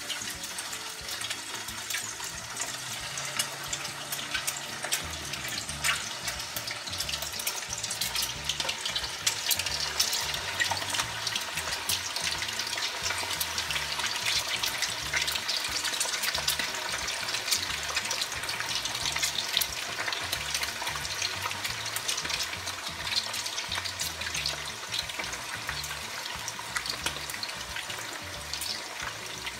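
Marinated chicken pieces frying in hot oil in a wok: a steady crackling sizzle that grows as more pieces are dropped in.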